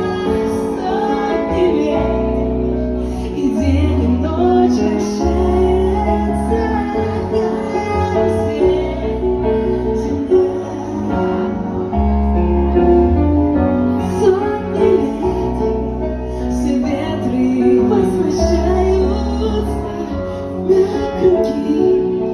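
A song with a female voice singing over instrumental accompaniment with a steady bass line.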